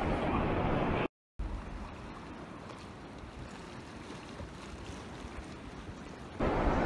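Steady wind and sea noise, with no distinct events. It cuts out completely for a moment about a second in, returns quieter, and grows louder again near the end.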